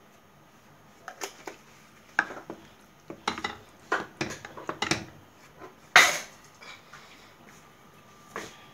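Wooden spoon stirring thick lentil porridge in a stainless steel pot, knocking and scraping against the pot's side in a run of irregular clacks. The sharpest knock comes about six seconds in, and there is one more near the end.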